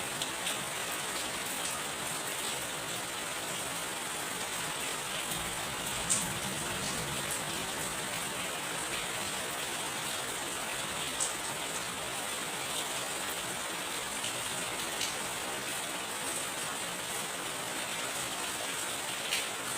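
Steady rain falling, with a few sharper drop strikes standing out every few seconds.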